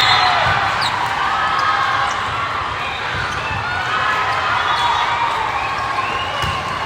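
Volleyball court in a gym: several voices calling out and overlapping, echoing in the large hall, with the thud of volleyballs being hit and bouncing on the court.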